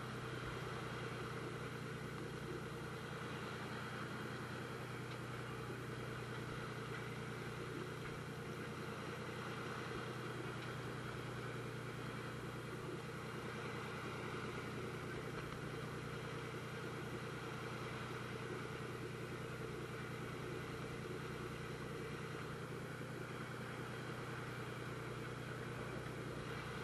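A fishing boat's engine running steadily, a constant low drone that does not change.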